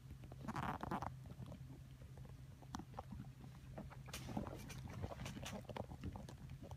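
Faint scattered clicks and scuffs from kittens moving about and eating, over a steady low hum.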